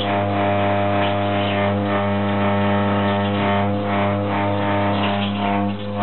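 Toilet plumbing giving a loud, steady, low drone like a fog horn, caused by reverberation in the pipes. It drops away right at the end.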